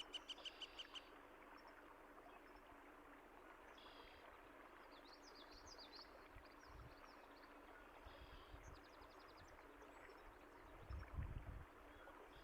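Faint steady trickle of running water with songbirds calling over it: a fast run of repeated chirps that stops about a second in, then scattered high calls and a short trill. A brief low rumble comes near the end.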